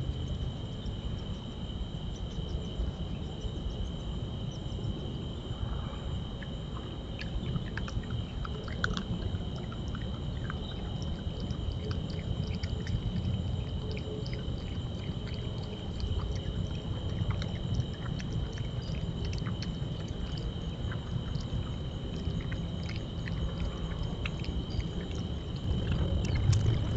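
Night insects chirring in a steady high drone over a low steady rumble, with scattered crisp clicks of an opossum crunching sunflower seeds and peanuts.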